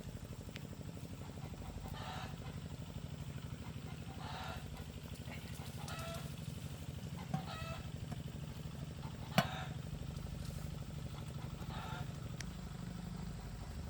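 Geese or other farm fowl honking in short calls every couple of seconds, over a steady low engine hum, with two sharp clicks near the middle.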